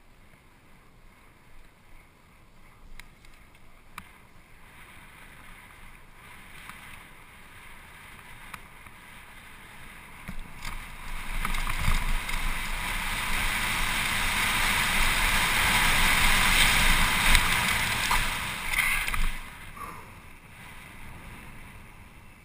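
Wind rushing over a helmet-mounted camera's microphone on a mountain bike descending a steep grassy hill, with rumbling from the tyres over the rough ground. It builds from about ten seconds in to a loud rush and drops off sharply a few seconds before the end as the bike reaches pavement and slows.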